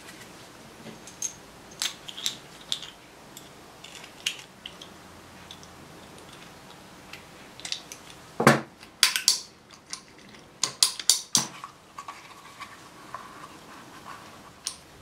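Small metal parts clicking and clinking while a motorcycle rear brake master cylinder is reassembled by hand with circlip pliers: scattered sharp clicks, with a denser, louder run of clinks from about eight to eleven and a half seconds in.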